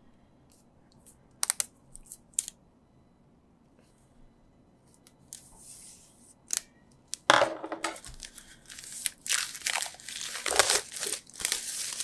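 Plastic shrink-wrap being torn open and crinkled off a CD album. A few light clicks come first; about seven seconds in, a dense, loud crackling of plastic starts and goes on in bursts.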